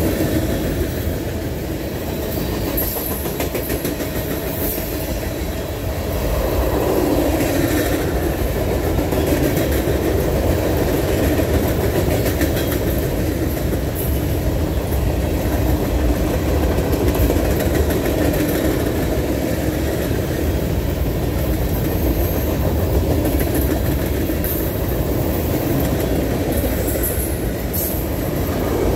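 Norfolk Southern freight train's cars rolling past at close range: a steady rumble of steel wheels on rail, with a few sharp clicks along the way.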